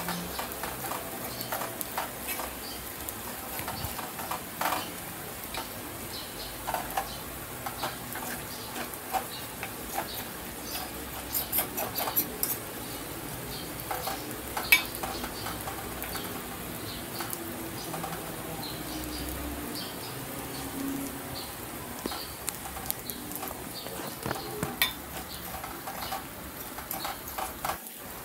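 Small chopped pieces sizzling in hot oil in a pan, stirred with a metal spatula that scrapes and clicks against the pan many times.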